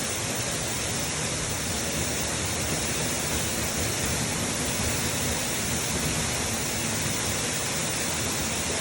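Waterfall pouring steadily: a dense, even rush of falling water that holds at one level throughout.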